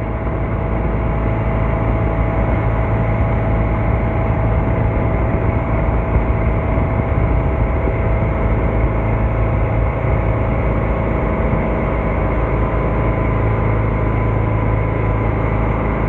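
Motorboat engine running steadily with an even hum.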